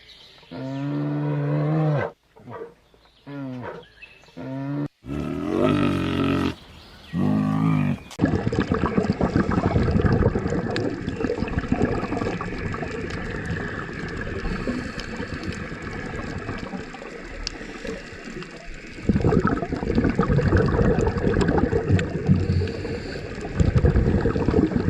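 Animal calls: a run of separate, low, drawn-out pitched calls for the first several seconds, then a dense noisy din from many sounds at once.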